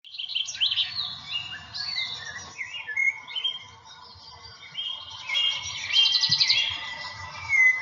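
Several songbirds singing at once: overlapping whistled chirps and short glides, with rapid trilled phrases around the middle and near the end.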